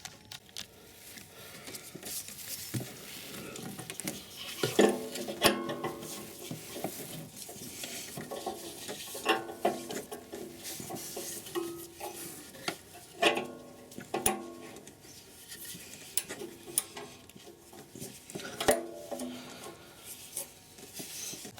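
Metal tools clinking and scraping as an oxygen-sensor socket and ratchet are worked onto a seized upstream O2 sensor. The sharp clicks are scattered, and several louder ringing clinks of metal on metal stand out.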